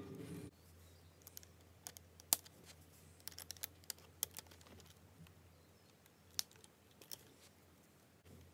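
Plastic Lego Technic pieces being handled and pressed together, giving scattered sharp clicks and light rattles. A louder steady hum cuts off about half a second in.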